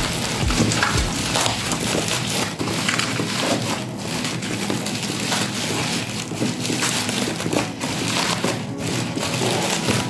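Product packaging being handled and opened, with a dense run of crackling and crinkling from cardboard and plastic.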